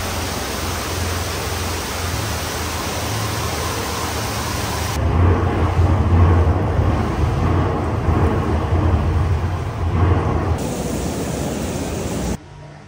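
Steady hiss of artificial rain pouring down into a spa pool, over a low thunder rumble that swells about five seconds in, in a lightning-storm simulation room. The sound drops off abruptly near the end.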